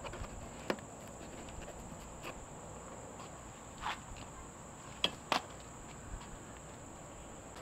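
Faint, scattered light clicks and taps, four or five in all, over a steady high-pitched whine.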